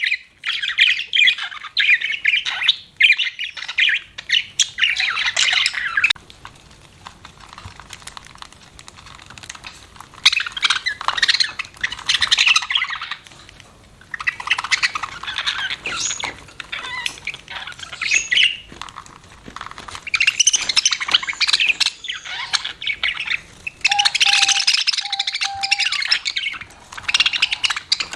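Budgerigars chirping and chattering in busy bursts of a few seconds each, with a lull of about four seconds after the first burst.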